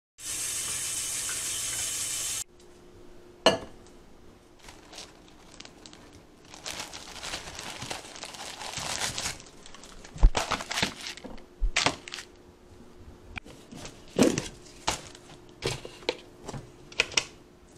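A steady hiss for about two and a half seconds, cutting off suddenly. It is followed by irregular kitchen handling noises: clicks, knocks and rustling as a hand rummages in a plastic canister and moves things on a counter.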